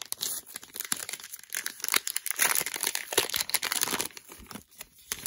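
The wrapper of a 2020 Topps Heritage Minor League baseball card pack being torn open and crinkled and crumpled in the hands. The crackling thins out near the end.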